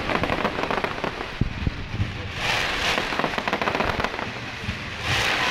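Fireworks crackling: a dense, rain-like patter of rapid pops from crackling stars, with a few low thuds early on and swells of hiss about two and a half seconds in and again near the end.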